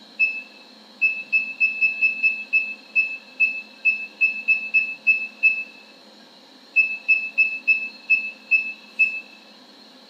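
The key-press buzzer of an automatic wire stripping machine's control panel gives a short high beep with each press of the arrow keys. About two dozen beeps come in quick runs, three or four a second, with a pause of just over a second in the middle.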